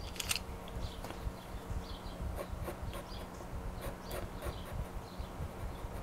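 Faint, irregular scratching and light ticks of a pastel pencil on pastel paper, with small clicks as the pencils are handled, over a low steady hum.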